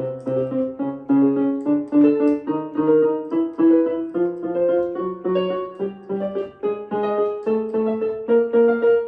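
Piano accompaniment for a vocal glissando exercise, with no voice: quick repeated chords that move from key to key.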